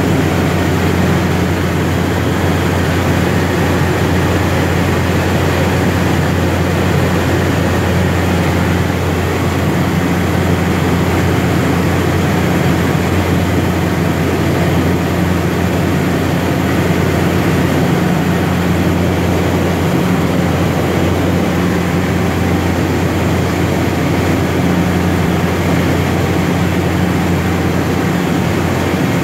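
GE H80 turboprop engine and propeller of a DHC-3 Turbine Otter seaplane in flight, heard inside the cockpit as a loud, steady low drone over a rushing hiss.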